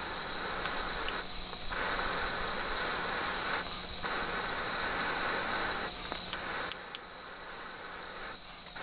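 Crickets singing in a steady chorus, one continuous high-pitched trill. Beneath it a softer hiss that breaks off briefly several times.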